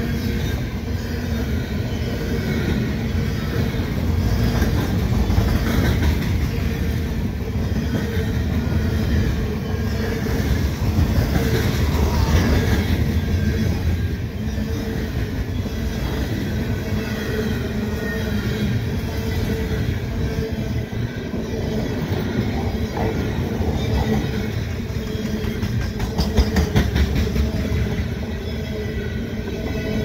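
A fast-moving freight train of covered grain hopper cars rolling past close by: a steady rumble of steel wheels on the rails, with a few sharp clacks a few seconds before the end.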